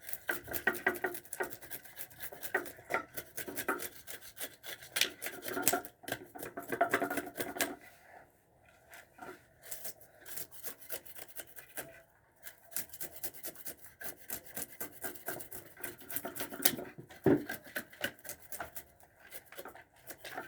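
Scales being scraped off a gilt-head bream: quick, repeated rasping strokes against the fish's skin. There is a short pause about eight seconds in, then the scraping resumes.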